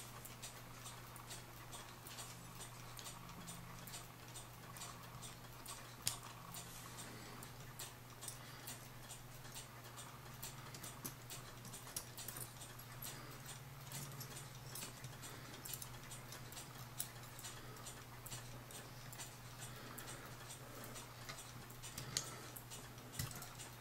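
Faint, quick, light clicking like a clock ticking, over a steady low hum, with one slightly louder click about six seconds in.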